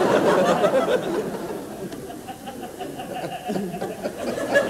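Theatre audience laughing, loudest at first and then thinning to scattered laughs.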